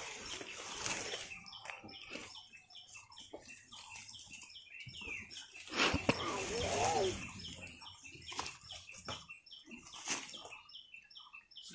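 Small birds chirping in quick, repeated short notes. About six seconds in, a louder sudden sound is followed by a wavering pitched call lasting about a second and a half.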